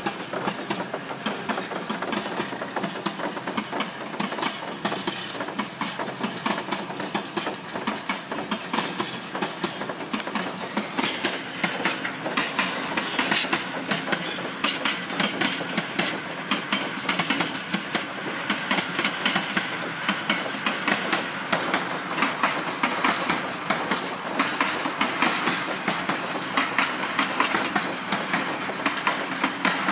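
Freight train rolling past, its wagons clattering over the rail joints in a steady clickety-clack that grows louder about ten seconds in as the tank cars pass close.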